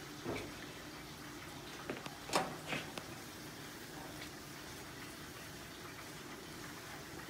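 A silicone spatula stirring canned peas in their liquid with sugar and butter in a pan on a high flame, giving a few soft knocks against the pan in the first three seconds over a faint, steady hiss.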